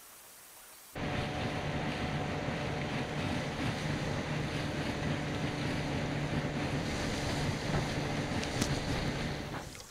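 Skiff's outboard motor running steadily under way, with wind buffeting the microphone and water rushing past the hull. It cuts in suddenly about a second in and fades out just before the end.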